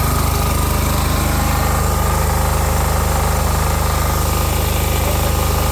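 A homemade diesel generator's 10 hp single-cylinder air-cooled diesel engine running steadily, with an even, rapid knock as it drives a bank of ECM motors that serve as permanent-magnet generators.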